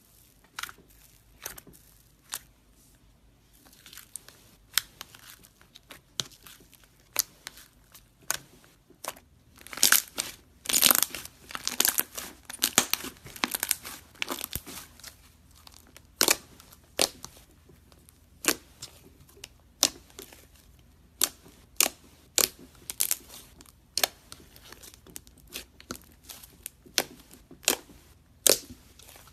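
Pink fluffy slime being poked, pulled and stretched by hand, giving off sharp crackles and pops. The pops come singly at first, then in a dense burst of crackling about ten seconds in, then as spaced clicks again.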